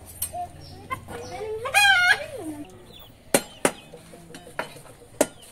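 A white chicken held pinned to the ground gives one loud, wavering squawk about two seconds in. A few sharp knocks follow in the second half.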